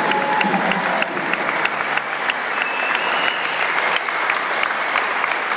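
A large crowd applauding steadily, many hands clapping at once, with a few voices among it.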